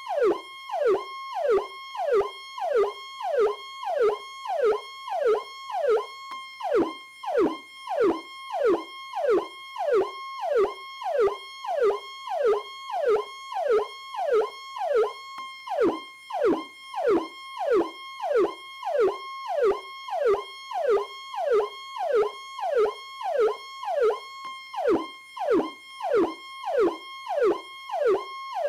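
Police PowerCall siren cycling in a fast repeating pattern: a tone drops sharply in pitch about twice a second, over a steady high tone that holds between the drops.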